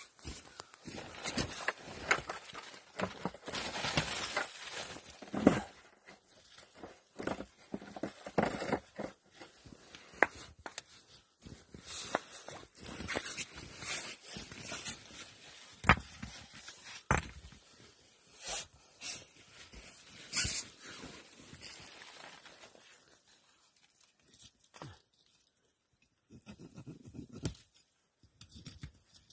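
Irregular scraping, crunching and knocking of stones and dirt being handled to build a fireplace, busy at first and thinning to a few faint scrapes near the end.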